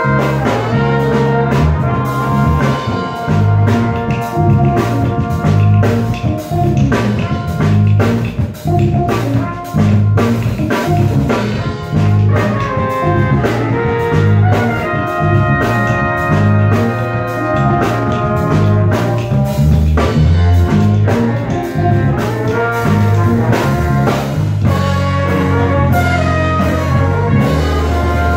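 Live band playing: a horn section of trumpets and trombone carrying the melody over electric bass, drum kit and hand drums.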